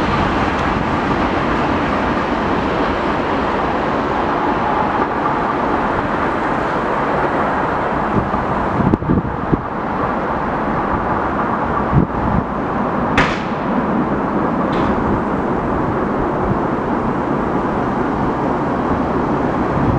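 Steady outdoor rumble and hiss at a trackside as an electric locomotive runs away into the distance, with a few dull knocks and a short, sharp falling chirp about thirteen seconds in.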